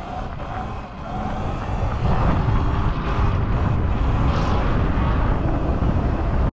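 Sur-Ron electric dirt bike riding along, its motor whine rising slightly in pitch in the first second, under wind buffeting the microphone. About two seconds in, the wind rumble grows louder and covers the motor.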